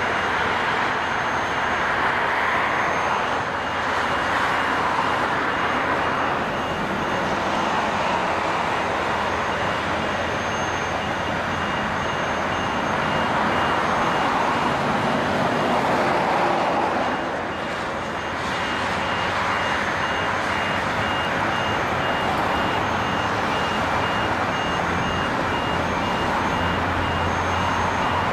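Steady din of heavy construction machinery and diesel engines, with a high warning beeper sounding on and off in rapid beeps.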